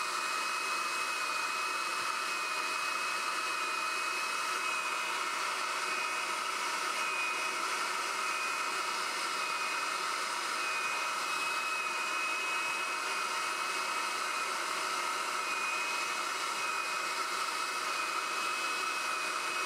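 Electric heat gun running steadily: a constant fan-and-air rush with a thin high whine on top.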